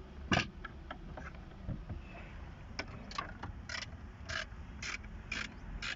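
A ratchet wrench being worked in short strokes. Scattered clicks come in the first half, then a steady run of sharp ratcheting bursts about twice a second.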